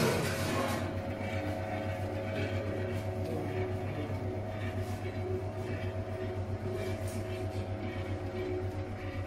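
A STILER BS 128 HDRA metal-cutting band saw running steadily, its motor humming evenly as the blade cuts a steel bar clamped in the vise. There is a brief hiss right at the start.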